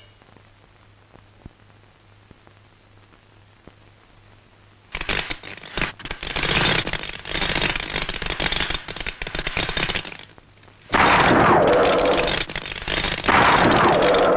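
Cartoon electric-discharge sound effect: a dense, rapid crackling of sharp snaps, as the robot is charged with electricity. It starts about five seconds in, after a quiet stretch with a faint low hum, and gets much louder about eleven seconds in.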